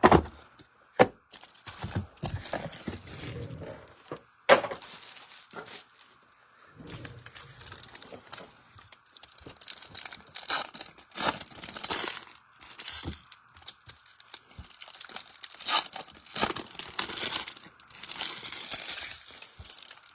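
Trading-card pack wrappers being torn open and crinkled by hand, in short repeated bursts, with a few sharp knocks of things set down on the table near the start.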